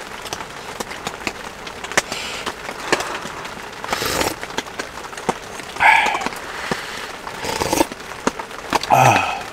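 Small clicks and knocks of eating and handling tableware, over a steady hiss of rain on the tent, with a short murmur of voice near the end.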